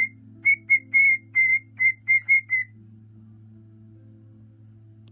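Cockatiel whistling a quick run of about eleven short, clipped notes at a fairly steady pitch. The notes stop about two and a half seconds in.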